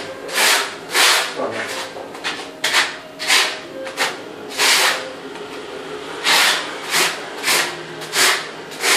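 Notched steel trowel scraping cement tile mortar across the back of a large polished floor tile, back-buttering it before it is laid. It makes a series of gritty scraping strokes, about one to two a second, with a short pause midway.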